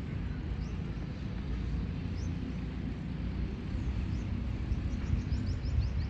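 Outdoor ambience: a steady low rumble with birds chirping, short high rising notes that come more often near the end.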